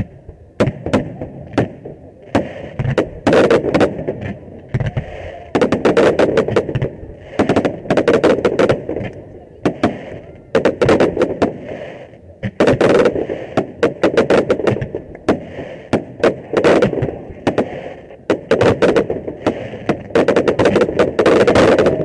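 Fireworks display firing at close range: shells launching and bursting in rapid volleys of sharp bangs, coming in clusters every second or two.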